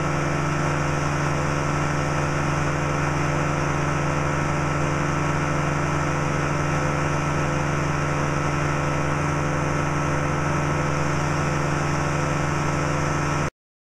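Powered parachute's engine and pusher propeller running steadily at cruise power in flight, heard from the pilot's seat. The sound cuts off suddenly near the end.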